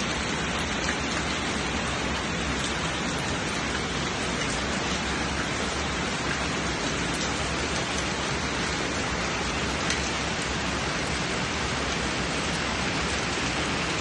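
Heavy typhoon rain falling steadily, an even hiss with faint scattered drop ticks.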